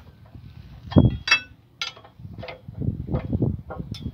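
Steel hand tools knocking and clinking against an excavator's steel track chain guard as its bolts are worked with a spanner. A loud dull knock about a second in, then two sharp ringing metal clinks, then lighter knocks.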